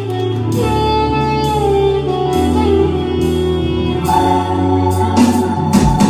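Band music: a sustained melody line, likely on a reed instrument, over a bass that steps in pitch. Sharp drum strokes come in near the end.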